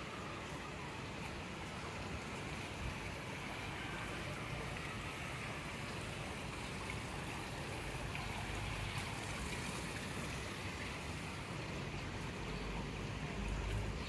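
Steady rush of water running from a swimming pool's water feature, with a low rumble near the end.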